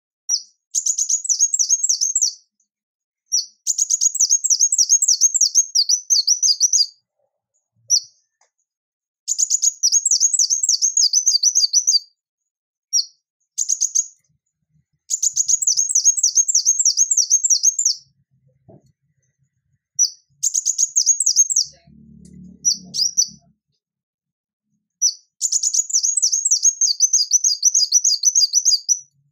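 Male ruby-cheeked sunbird singing: high, thin phrases of rapidly repeated down-slurred notes, each phrase lasting one to three seconds, broken by short pauses and a few single notes.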